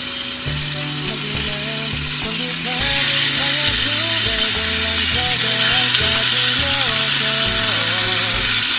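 Sliced raw beef sizzling in hot oil in a frying pan as it is added by the handful, the hiss growing louder about three seconds in as more meat goes in. Background music with a melody and bass line plays underneath.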